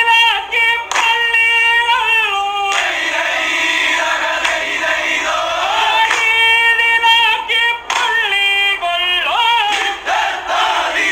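Several voices singing a song together like a choir, with long held notes that bend in pitch between phrases.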